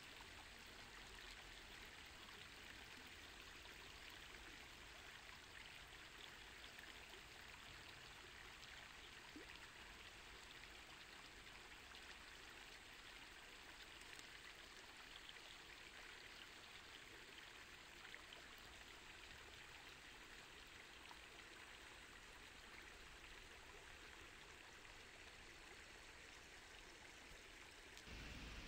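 Faint, steady trickle of a shallow stream flowing over stones.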